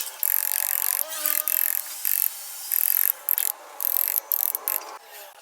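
Power tool cutting into wood in short stop-start bursts, a hissy grinding over a steady motor whine, likely carving a wooden statue. The cutting stops near the end.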